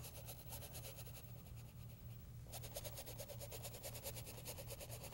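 Paintbrush scrubbing acrylic paint onto a stretched canvas in quick short strokes, about ten a second, with a brief pause about two seconds in. A faint low hum runs underneath.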